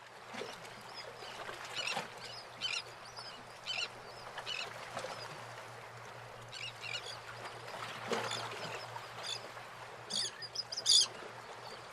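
Birds calling: short squawks repeated at irregular intervals, over a faint low steady hum.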